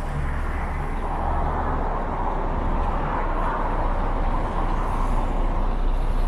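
Street traffic: a diesel city bus's engine runs close by with a steady low hum while cars drive past on the avenue. The tyre noise swells to a peak about three seconds in.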